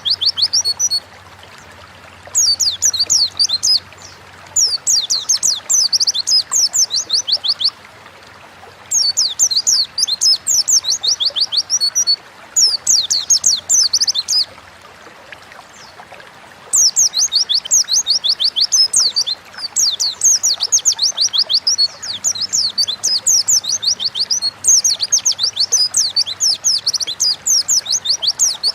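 White-eye (pleci) singing in fast twittering phrases of rapid, high, downward-sweeping notes. Each phrase lasts a few seconds, with short pauses between them and one longer pause midway.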